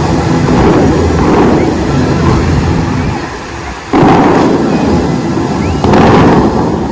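The Dubai Fountain's water jets firing with loud booming bursts, twice: about four seconds in and again two seconds later. Under them runs a steady rumble of rushing and falling water, with the show's music playing.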